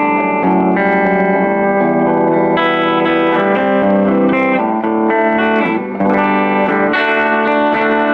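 Electric guitar played loud through a Quantum Terminator K35 combo amp with a 12-inch speaker, sustained chords changing every second or so and stopping suddenly at the end. The amp is working after its TDA2030A output chip was replaced with a TDA2050.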